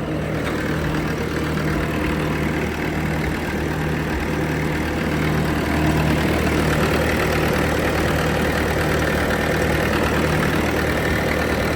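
Bobcat T630 compact track loader's diesel engine idling steadily.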